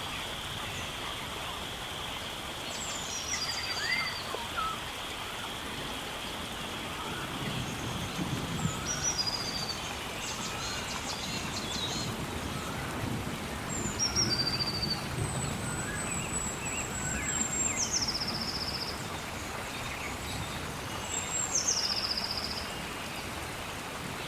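Rainforest ambience: a steady hiss of rain or running water under bird calls, each a high note gliding down into a short trill, repeated every few seconds. A steady high insect drone fades out over the first several seconds.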